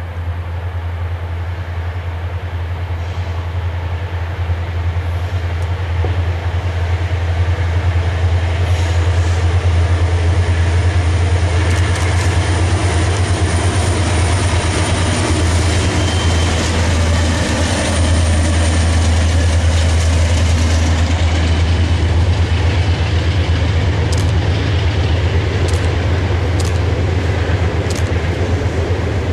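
A freight train crossing a steel girder bridge overhead, with a steady low rumble that grows louder a few seconds in. A thin high squeal runs through the middle of the passage, and a few sharp clacks come near the end.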